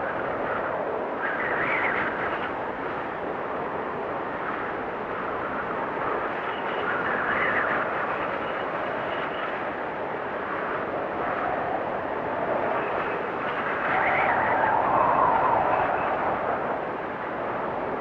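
Blizzard wind blowing hard and steadily, swelling into stronger gusts three times, the last and loudest near the end, with a faint high whistle during some of the gusts.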